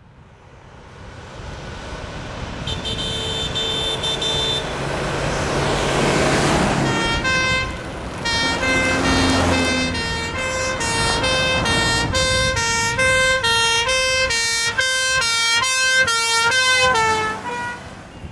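Vehicles approach and pass with rising engine and road noise. A horn is held for about two seconds around three seconds in. Then an ambulance's two-tone siren alternates high and low about once a second and drops in pitch as it goes by near the end.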